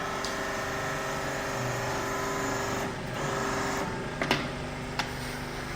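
Hydraulic hose crimping machine running: a steady motor-and-pump hum with a pitched whine, dipping briefly about three seconds in. Two sharp clicks come a little after four seconds and at five seconds.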